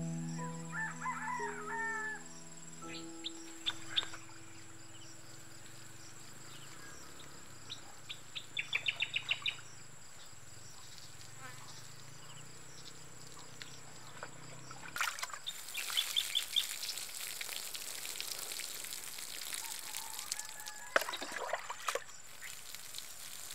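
Soft background music with birds chirping over it. The music stops about fifteen seconds in, leaving outdoor birdsong and ambience, and near the end comes a brief splash of water poured from a bucket onto loose soil.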